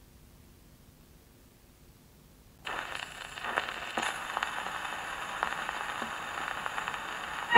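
Surface noise of a Polydor shellac 78 record under a gramophone's steel needle: hiss and crackle with a few sharp clicks, starting abruptly about two and a half seconds in after near silence.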